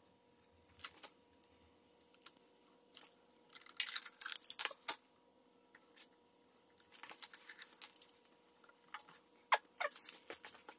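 Light metallic clinks and rattles of the crank pulley and harmonic balancer being worked off a Mercedes M119 engine's crankshaft nose by hand, in short clusters about four seconds in and again about seven seconds in, with a few sharp clicks near the end.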